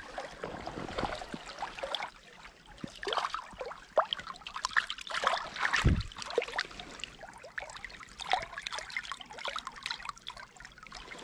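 Shallow creek water splashing and trickling close by in small irregular splashes, as a small hooked brown trout is brought in on a fly rod. A dull thump about six seconds in.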